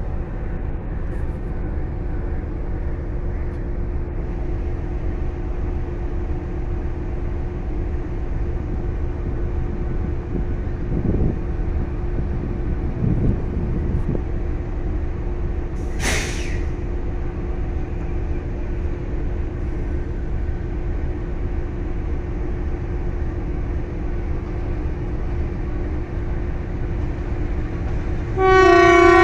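Diesel locomotive idling with a steady low rumble and hum, a short hiss about halfway through. About a second before the end a locomotive's multi-tone horn blasts loudly as the approaching train nears the station.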